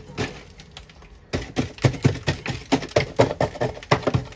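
Rapid, irregular hard knocks and taps, like ice being chipped and knocked loose inside an iced-over refrigerator. It is fairly quiet at first, and the dense knocking starts a little over a second in.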